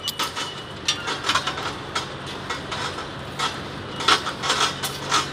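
Hand-held nail cutter snipping long nails: a run of short, sharp clicks at irregular spacing, about two or three a second, over a faint steady low hum.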